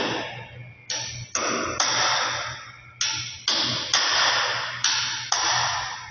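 Hammer blows on a chisel chipping at the concrete crack along the wall-ceiling joint, opening up the leak for epoxy injection. There are eight blows in runs of two or three about half a second apart, each trailing off over about half a second.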